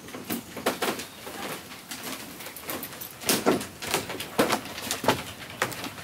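Irregular footsteps and knocks on old wooden porch floorboards, with birds calling.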